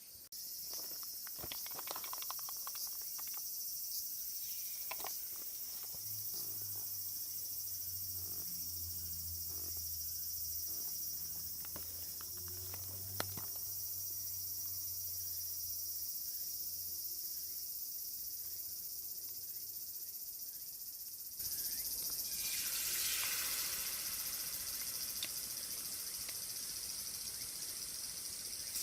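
Insects chirping steadily in a high band, with a few light clicks and a low drone through the middle. About two-thirds of the way through, hot oil starts sizzling, the sound of tempura frying, and keeps going.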